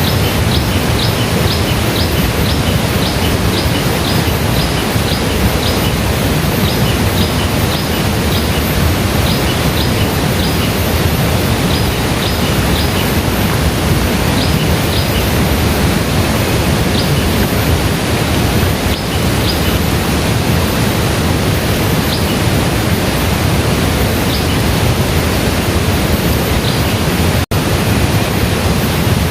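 Waterfall rushing steadily, swollen by overnight rain. Over it a bird gives short high chirps about twice a second, then more sparsely. The sound drops out for an instant near the end.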